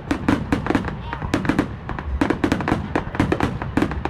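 Fireworks exploding in rapid, irregular bangs, several a second, with brief lulls between clusters.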